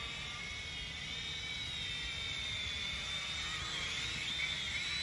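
Small quadcopter drone flying overhead, its propellers making a high whine whose pitch wavers as it manoeuvres, over a low rumble.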